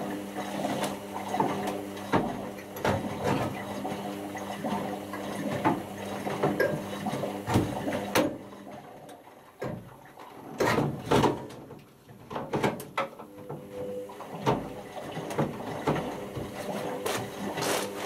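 Indesit IWC6165 washing machine early in its cycle: water sloshing and laundry knocking in the turning drum over a steady machine hum. The hum stops about eight seconds in, a few splashy knocks follow, and it starts again a few seconds later, as the drum pauses and turns again.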